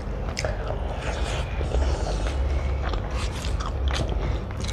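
Close-up chewing and mouth sounds of eating omelette curry and rice by hand, with irregular small clicks and wet crackles, over a low steady hum.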